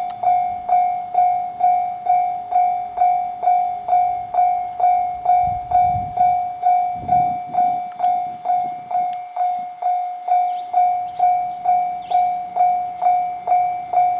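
Japanese level-crossing warning bell, the electronic omnidirectional type, ringing about twice a second, each stroke a single tone that dies away. A brief low rumble rises and fades about halfway through.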